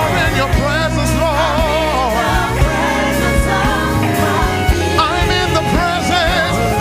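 Live gospel worship music: a lead vocalist singing with heavy vibrato over backing singers, bass, keyboards and drums.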